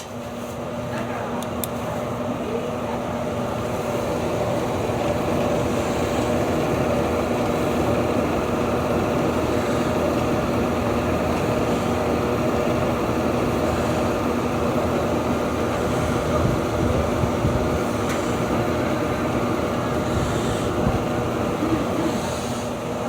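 Toshiba ED-608 washer-dryer running with a steady rumbling drone and a constant hum, building up over the first few seconds and then holding level. This is the abnormal noise that the owner traces to a worn fan bearing.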